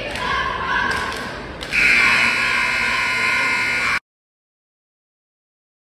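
Gym scoreboard horn sounding one loud, steady blare, the signal that ends a timeout. It starts suddenly about two seconds in, over hall chatter, holds for about two seconds and cuts off abruptly.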